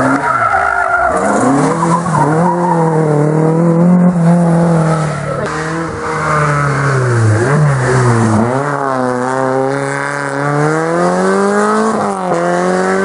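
Rally car engines revving hard through hairpin bends. The pitch falls as the driver brakes and lifts, then climbs steadily as the car accelerates away, with a quick drop near the end at a gear change.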